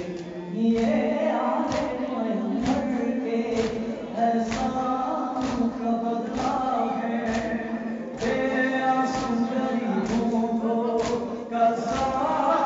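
Many male voices chanting an Urdu nauha (Shia lament) together, with sharp rhythmic slaps about once a second, the mourners' hand-on-chest matam keeping the beat of the lament.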